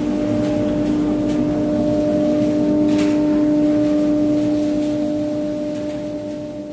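CNC wood-carving router running with a steady pitched hum and a few faint clicks, fading out near the end.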